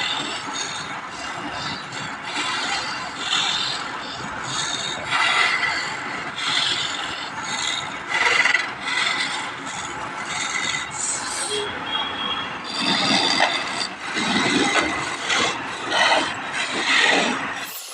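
A tool scraping and rubbing on wood in uneven strokes, like rasping or carving by hand.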